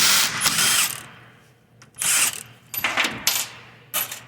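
A power driver runs in several short bursts, spinning out the bolts that hold the accumulator body on a 4L60E transmission valve body.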